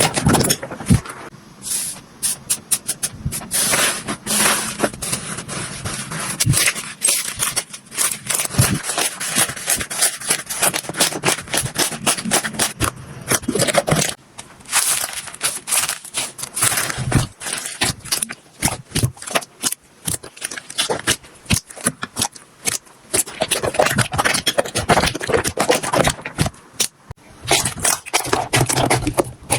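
Slime being squeezed, poked and stretched by hand: a dense run of irregular wet clicks, pops and crackles, with smoother squelching stretches in between.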